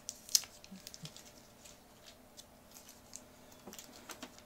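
Paper leaflets and thin card inserts being handled and leafed through: light rustles and small clicks, with one sharper click about a third of a second in.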